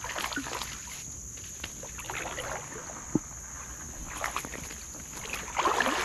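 Water splashing and sloshing as a hooked fallfish thrashes at the surface of a shallow creek and is brought to a landing net. The splashing is loudest near the end.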